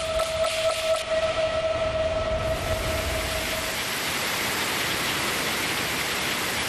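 Dramatized sound effects of the reactor running away: a steady alarm-like tone pulsing about three times a second fades out over the first few seconds, while a rushing, hissing roar of steam pressure swells up and holds.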